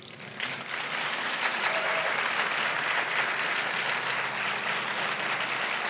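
Audience applauding, starting about half a second in and then holding steady.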